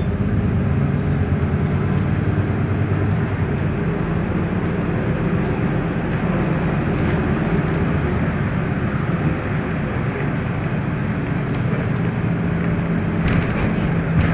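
Inside a VDL Citea 12 m city bus: a steady low hum from the drivetrain with road and cabin noise, loud and even throughout.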